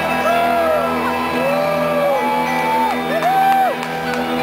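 Music with steady sustained tones, and crowd members whooping and yelling several times over it, each whoop a drawn-out 'woo'.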